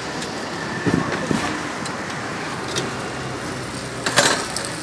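Steady street traffic noise, with a couple of short knocks about a second in and a sharp clatter near the end.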